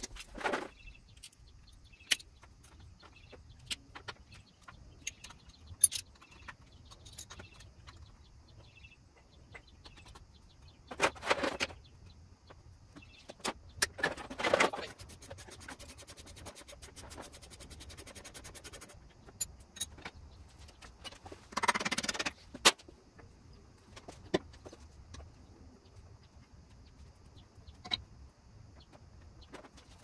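Hand tools working on a scooter's front wheel: scattered metal clinks and knocks with a few short scraping rustles as parts are handled, and a few seconds of rapid, even clicking a little past halfway through.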